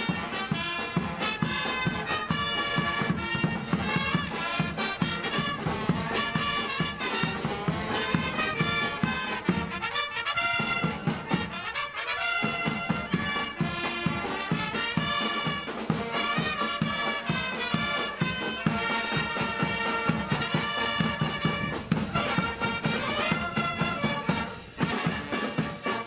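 A marching wind band playing a lively tune: brass and saxophones carrying the melody over a steady drum beat.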